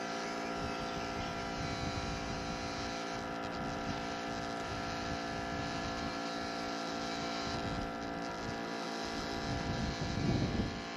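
Keurig single-cup coffee maker running while it brews, a steady electric hum from its pump and heater.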